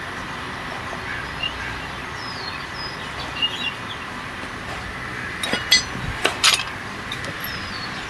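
A few sharp metallic clinks a little past the middle as a motorcycle's steel clutch plates and clutch hub are handled and knocked together. Faint bird chirps sound over a steady background hiss.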